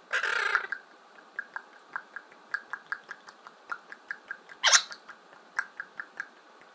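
Yellow-collared macaw giving a short harsh squawk, then a run of soft quick clicks, about three a second, broken by a second brief harsh squawk near the end.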